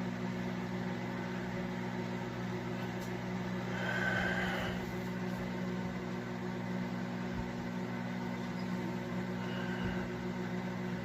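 Microwave oven running with a steady hum. A brief faint higher whine sounds about four seconds in.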